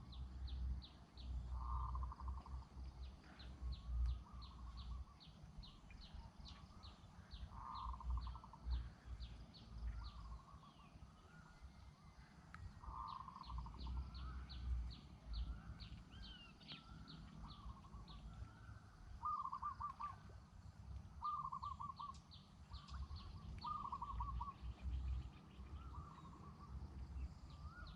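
Outdoor ambience with several birds calling: short trilled calls repeated every few seconds, over runs of rapid, high chirps. A low, uneven rumble sits underneath.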